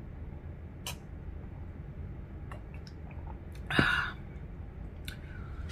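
Quiet mouth sounds of drinking juice from a glass: small lip and swallowing clicks, with one short, louder breathy sound about four seconds in.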